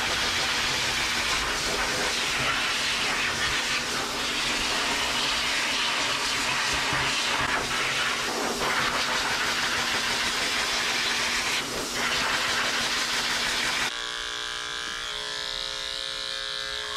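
High-velocity pet dryer blowing a steady rush of air through its hose nozzle. Near the end it gives way to the steady buzz of electric dog clippers.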